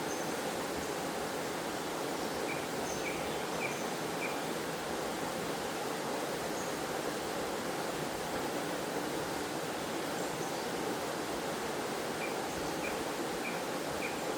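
Waterfall's water pouring and splashing in a steady, even rush. Twice, once a few seconds in and again near the end, a quick run of four faint high chirps sounds over it.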